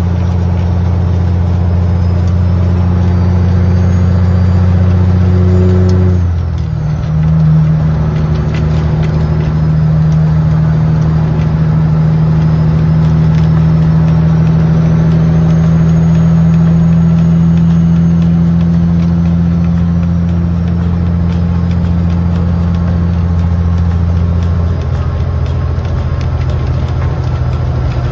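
Semi truck's diesel engine droning steadily while cruising, heard from inside the cab. About six seconds in the note dips briefly and settles slightly lower, then it carries on steadily.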